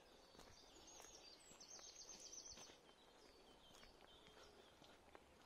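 Faint birdsong in woodland: a quick, high trill of rapidly repeated notes lasting about a second, about two seconds in, among other short bird calls, with soft footsteps of a walker on a trail.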